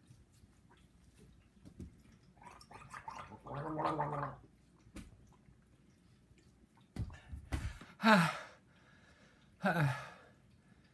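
A man gargling a mouthful of water for a few seconds, then letting out two short pained groans that fall in pitch, from the burn of an extremely hot pepper-coated nut.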